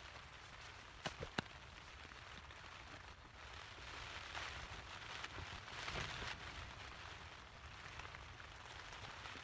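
Rain falling on the tent fabric, a steady soft hiss that swells louder for a couple of seconds midway. Two sharp taps come close together about a second in.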